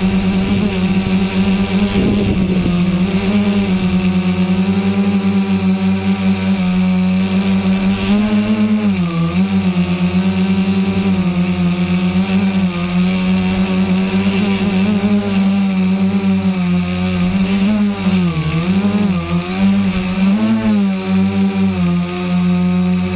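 A small motor running steadily, a loud buzzing hum whose pitch wavers up and down several times in the second half.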